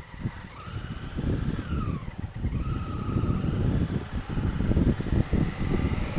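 Honda Africa Twin CRF1000L's parallel-twin engine pulling away and accelerating, getting louder, with a whine that rises, drops about two seconds in and settles again, under rumbling wind noise on the helmet camera.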